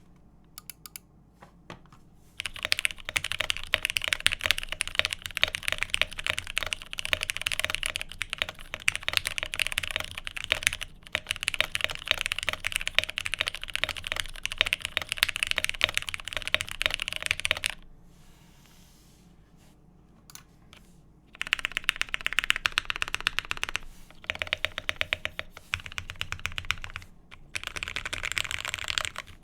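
Fast typing on a Cyberboard R3 mechanical keyboard with lubed and filmed Cherry MX Hyperglide switches on a polycarbonate plate, with case and plate foam. The typing runs in long stretches and pauses for a few seconds about two thirds of the way in, with only a few single keystrokes during the pause.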